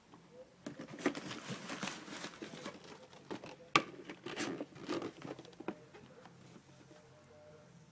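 Packaging being handled: irregular rustling and crinkling, with one sharp click about halfway through, dying away after about six seconds.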